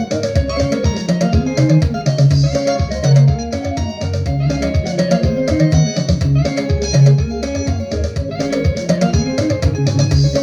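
Upbeat gospel band music with no singing: plucked guitar lines over bass and drums keeping a steady beat.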